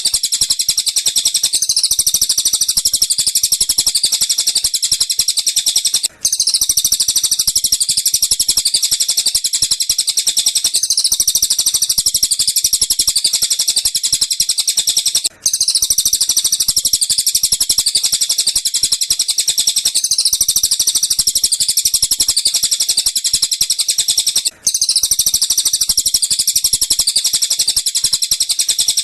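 Recording of rapid, high-pitched bird chatter played as a loop for training a lovebird's song. The sequence repeats about every nine seconds, cut by a brief gap three times.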